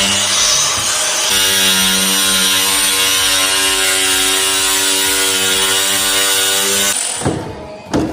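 A power tool's electric motor runs steadily with a constant pitch, dips briefly about a second in, then stops about seven seconds in. A few sharp knocks follow.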